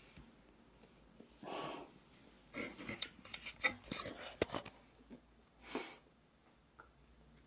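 Faint handling noise, clicks and rubbing, as a handheld camera is picked up and swung around, with two short breathy puffs, one before and one after the handling.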